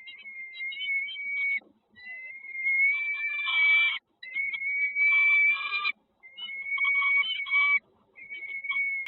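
Nestlings calling in the nest: a shrill, steady note held in bouts of about two seconds, with harsher chattering mixed in. Each bout cuts off suddenly.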